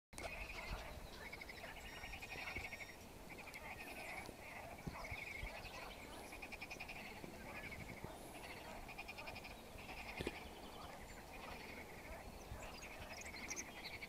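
A chorus of frogs calling from a lake: many overlapping calls follow one another without a break. Each is a quick run of pulses about half a second to a second long.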